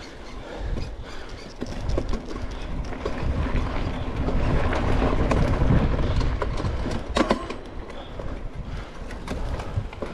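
Mountain bike riding a dirt and gravel trail, heard from on the bike: tyres rolling and crunching over dirt and stones, with the frame and parts rattling and clicking. It gets louder in the middle, and there is one sharp knock about seven seconds in.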